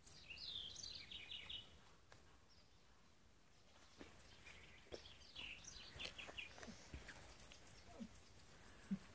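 Bird calls: two short bursts of chattering notes a few seconds apart, then a rapid series of very high, thin notes, about five a second, near the end.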